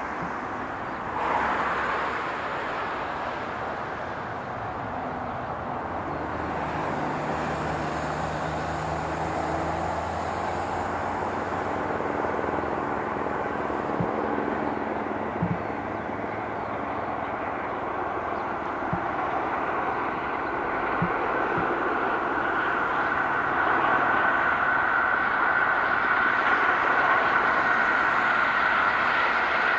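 A helicopter's steady engine and rotor noise overhead, mixed with the LNER A4 Pacific steam locomotive Bittern and its train running at speed along the main line. The train grows louder toward the end as it draws near, and there are a few sharp clicks in the middle.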